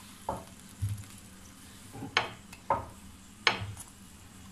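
Wooden spatula pressing and knocking on a garlic paratha in a non-stick tawa, about five short knocks, the ones near the middle and near the end the loudest. The paratha is being pressed down so that it puffs up.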